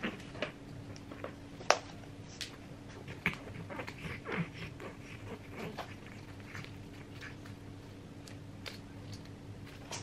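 Cats playing with a feather wand toy on a hard floor: scattered light taps and clicks of paws and toy, the sharpest just under two seconds in, over a faint steady hum.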